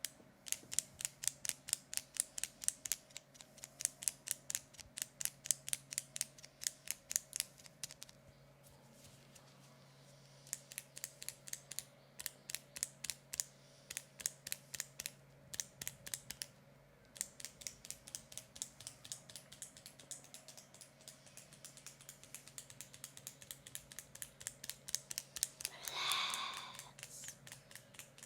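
Long runs of crisp, sharp clicks at about four a second, stopping briefly twice, as a close-up ASMR trigger. Near the end a louder scrape lasts about a second.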